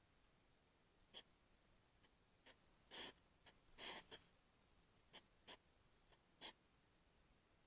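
European hedgehog snuffling and rustling at the ground close to the microphone: a scatter of short, faint sniffs and scratchy rustles, with two slightly longer ones near the middle.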